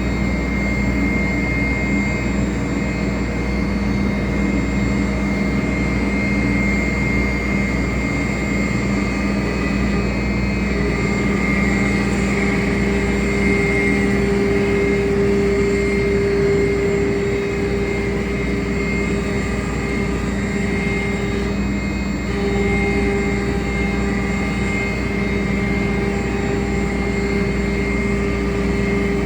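CNC router running steadily: a continuous whine with several held tones over a noise bed. One tone shifts in about a third of the way through and briefly drops out about two-thirds of the way through, as the cut changes.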